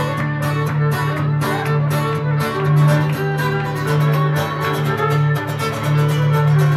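Live Irish traditional music: a fiddle playing the melody over a guitar strummed in a steady, even rhythm.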